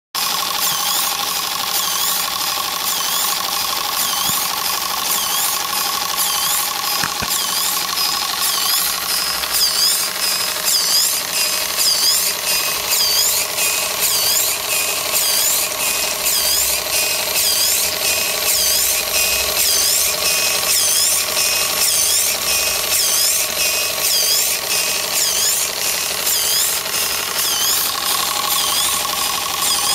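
Model steam plant's small water pump running, its strokes giving a rhythmic squeaky chirping about twice a second over a steady whine.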